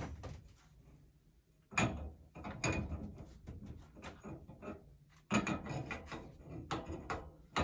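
A threaded iron pipe fitting being turned by hand onto a steam pipe: from about two seconds in, a run of irregular metallic clicks and grating scrapes as the threads engage.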